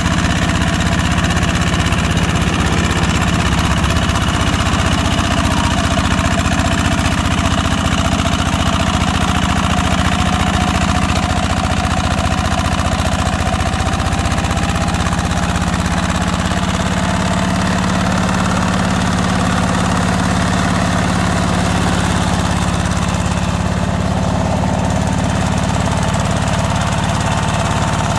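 Single-cylinder diesel engine of a two-wheel hand tractor running steadily with a rapid, even beat as it drives steel mud wheels through a flooded rice paddy.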